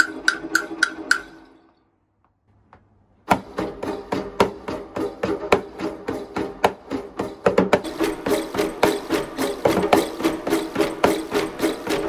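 Wooden percussion clacking in an even beat of about five strikes a second, stopping about a second in. After a short silence, a hand-played frame drum starts a quick, steady rhythm of finger strokes whose head rings under each hit, and the rhythm gets busier in the second half.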